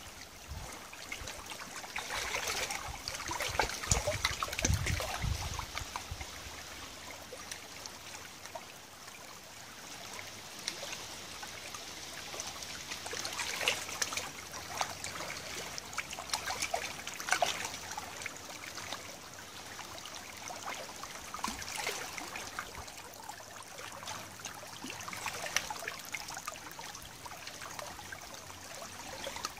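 Shallow tidal river water trickling and lapping among stones at the water's edge, a steady wash dotted with small splashes and drips. A brief low rumble comes about four seconds in.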